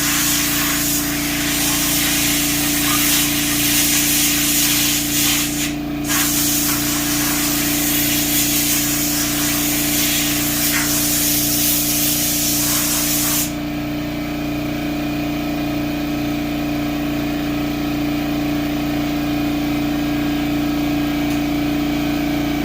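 A 21-gallon air compressor runs with a steady hum while compressed air hisses loudly from an air tool. The hiss has a brief break and then cuts off suddenly about two-thirds of the way in, and the compressor keeps running alone as it builds pressure back up.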